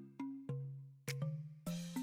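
Background music: a light tune of struck, pitched notes in a bell- or marimba-like tone, a few notes a second over a low bass note.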